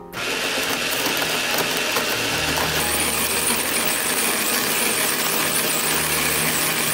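Built-in grinder of a fully automatic drip coffee maker grinding coffee beans: a loud, dense crunching rattle over a motor hum, which grows stronger about two and a half seconds in.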